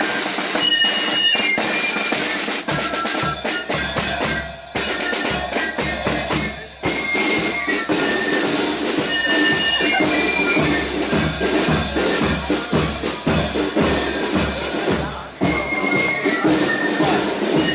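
Marching band music: a high wind-instrument melody played over steady drum beats, the tune's phrase coming round about every eight seconds.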